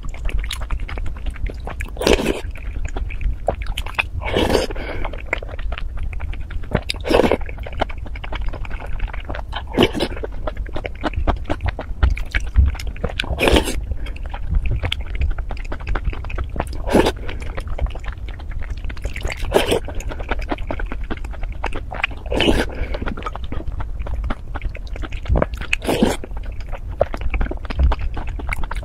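Close-miked mouth sounds of a person eating dessert: steady chewing, with a louder bite or mouth sound every two to three seconds, over a steady low hum.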